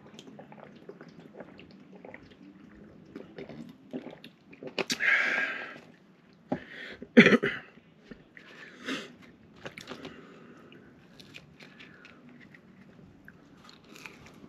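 Close-miked mouth sounds of eating: swallowing water from a plastic bottle, then chewing, with two louder noisy bursts about five and seven seconds in.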